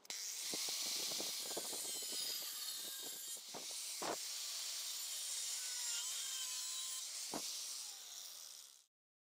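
Hand work on a steel plate clamped in a bench vise: a steady scraping, rasping noise with a cluster of small clicks early on, and sharp knocks about three and a half seconds in, again half a second later, and near the end.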